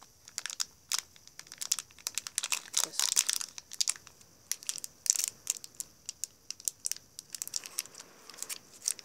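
Small plastic snack sachet crinkling and tearing as it is handled and pulled open: a dense, irregular run of sharp crackles.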